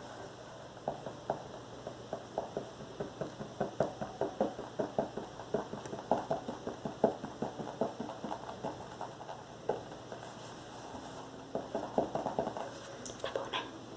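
Fingers tapping and knocking on a book, quick taps about three or four a second, then a short fast flurry near the end.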